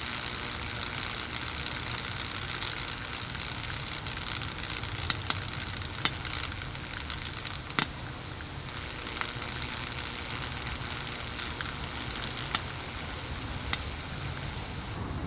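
A burning-out SMC table fan motor sizzling and crackling steadily, with a sharp pop every second or two.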